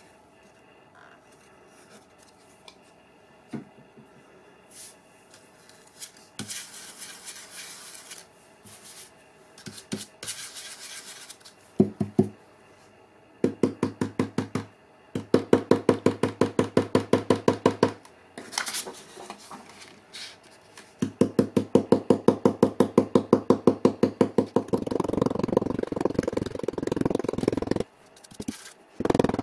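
Round stencil brush pouncing paint onto a wood sign through a stencil: runs of rapid, even taps, about seven a second, starting about halfway through. Near the end the brush scrubs in the paint on a paper plate, a louder steady rubbing.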